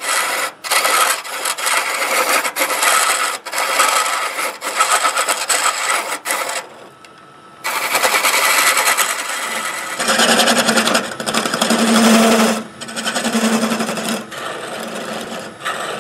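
Parting tool cutting into a spinning wooden blank on a wood lathe, taking down the tail end: a continuous scraping hiss in long passes, with a short break about seven seconds in. A low hum joins for a few seconds past the middle.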